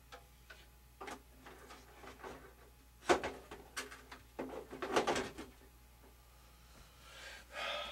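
Knocks and clicks of a model biplane's top wing being handled and fitted onto the fuselage, two louder knocks about three and five seconds in, and a short scraping rustle near the end.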